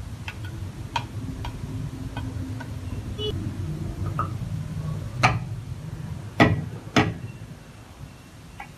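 Cleaver chopping on a round wooden cutting board, three heavy chops through garlic a little past halfway, the last two about half a second apart. Before them come a few light clicks of utensils against a plate and mortar.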